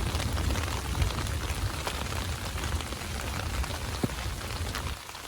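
Steady rain pattering, with scattered sharp drop hits, over a low rumble that drops away near the end.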